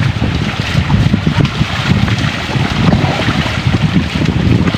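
Wind buffeting the microphone in a steady low rumble, over the rush of a flowing creek.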